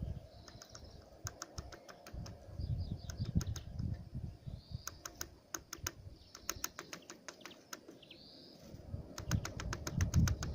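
Birds pecking at a feeder: four runs of quick sharp taps, each a rapid string of strikes lasting about half a second to a second. Thin high chirps come in between, over an uneven low rumble.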